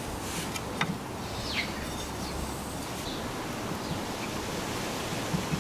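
Outdoor ambience: steady wind noise with a low rumble, and a few faint short clicks.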